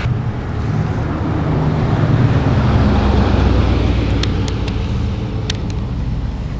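A motor vehicle passing by: a low engine rumble that swells over the first two seconds or so and then fades away. A few light clicks come about four to five and a half seconds in.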